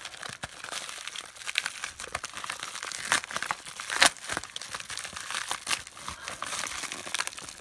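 Plastic mailer envelope being torn open along its perforation and crinkled by hand: irregular crackling and rustling, with sharper louder rips about three and four seconds in.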